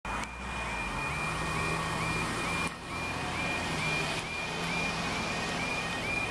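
UK level crossing warning alarm sounding, a high rising yelp repeated about twice a second. It signals that the crossing is closing and the barriers are about to lower for an approaching train.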